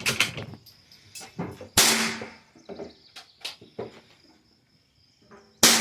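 Two rifle shots on a range, about four seconds apart, each a sharp crack with a short fading echo, with lighter clicks and knocks of handling in between.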